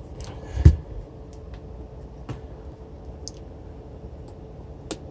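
Scattered clicks and light knocks of metal parts and tools being handled while a three-phase alternator is taken apart, with one louder knock just under a second in and another near the end.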